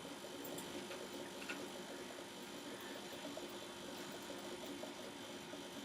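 Quiet room tone with a steady low electrical hum and a couple of faint ticks.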